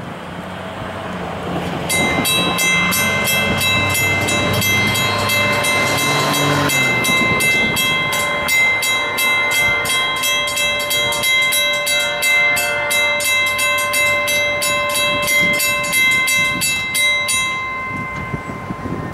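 Railroad grade crossing warning bell ringing in rapid, even strikes, starting about two seconds in and stopping suddenly near the end. It is the warning that a train is approaching the crossing.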